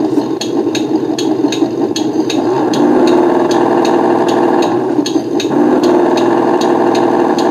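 The sound module of a 1/12 Kyosho DF300 radio-controlled snow vehicle plays a simulated engine through its small speaker. The engine revs up about a third of the way in as the model is driven, with a regular sharp ticking about three times a second.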